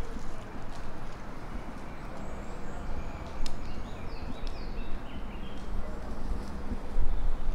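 Outdoor ambience: an uneven low rumble on the microphone, with a few faint, short, high chirps about halfway through.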